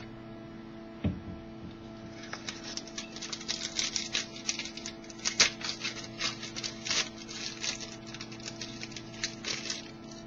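Trading cards and their packaging being handled: a quick run of crinkles, rustles and light clicks starting about two seconds in, after a single knock about a second in. A steady low electrical hum runs underneath.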